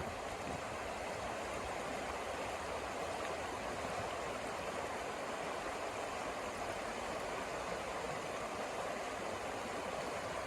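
Snowstorm wind rushing steadily.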